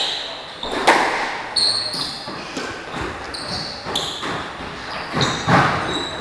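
Squash rally: sharp smacks of the ball off racket and walls, a couple of them loud, with repeated short high squeaks of court shoes on the wooden floor.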